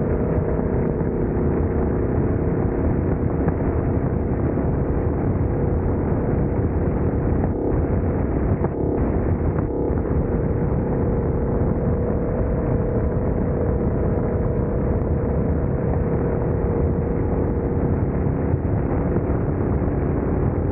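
Steady, loud running noise of a small low-slung ride-on vehicle travelling along an asphalt road: a constant rumble with a steady hum that holds its pitch.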